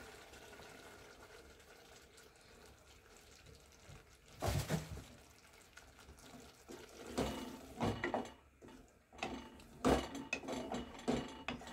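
A little water poured into a pot of thick chicken gravy about four and a half seconds in, to thin the sauce. After that, a wooden spatula stirs the gravy and knocks and scrapes against the metal pot several times.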